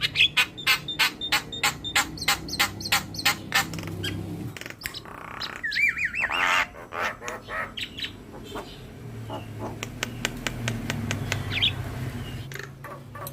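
Javan myna (jalak kebo) singing: a fast run of harsh, clicking chatter at about five notes a second, a wavering whistle about halfway through, then more chatter and a short call near the end.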